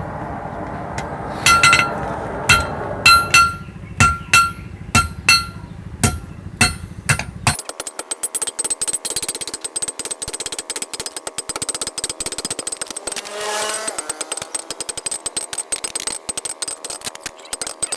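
Blacksmith's hammer striking steel on an anvil, about a dozen ringing blows over some six seconds. Then a long run of rapid, dense scraping clicks, metal being worked.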